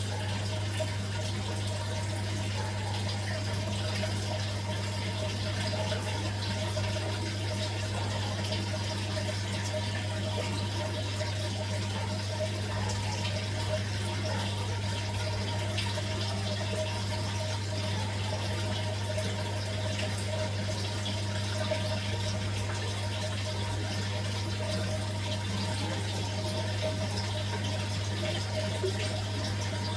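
Aquarium pump running: steady water bubbling and trickling over a constant low hum.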